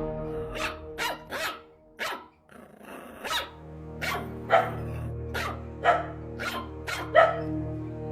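A puppy barking in a string of short, sharp yaps, about a dozen spread irregularly, over background music.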